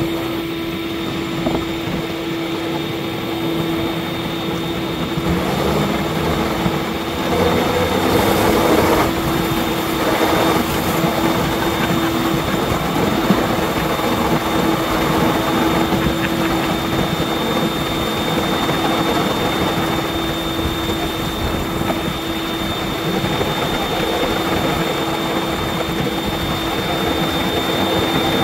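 Battery leaf blower running steadily at full power, a loud rush of air with a steady whine, used as thrust to push a small rail flat car along the track.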